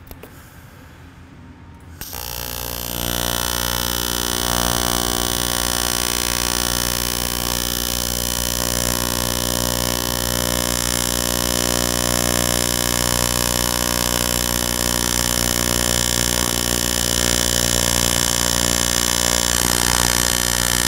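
AC TIG welding arc on thick aluminum plate, run at 210 amps, 60 Hz and 85% balance on straight argon: a steady buzzing hum that starts about two seconds in, builds over the next second, then holds. At this setting, with no preheat, the arc is underpowered: the bead sits on top of the plate with no penetration.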